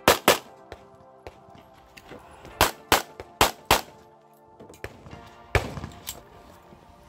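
Pistol shots fired in quick pairs, about four pairs with each pair's two shots a fraction of a second apart, and a few fainter cracks between: a shooter running a USPSA stage, firing double taps on targets.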